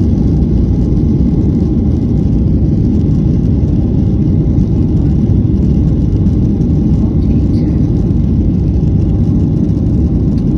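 Steady low rumble inside the cabin of a Boeing 737NG rolling on the ground, engines and wheels running together.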